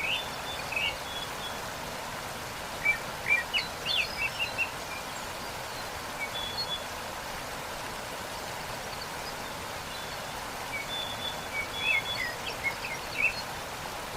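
Steady rush of a waterfall, with small birds chirping in short bursts over it: near the start, around three to four seconds in, and again near the end.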